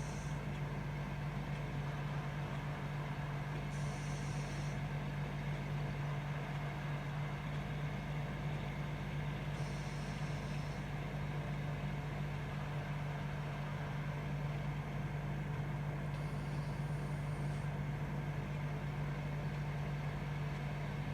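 Steady low hum of a room air conditioner. Over it come four soft, hissy snoring breaths from a sleeping corgi, each about a second long and several seconds apart.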